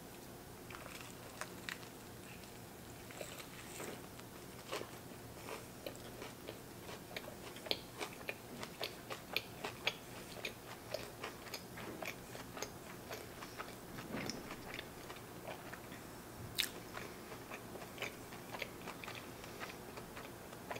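Chewing a mouthful of burger with crispy onion rings: a steady run of small crunches and wet clicks, busiest in the middle, with one sharper crunch about 16 seconds in.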